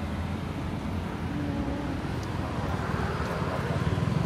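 Steady rumble of road traffic going by on a wet street.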